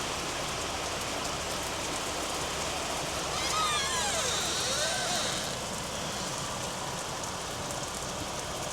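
Steady heavy rain pouring onto a sidewalk and yard, with a car passing on the wet street about three to five seconds in, its tyre hiss swelling and fading.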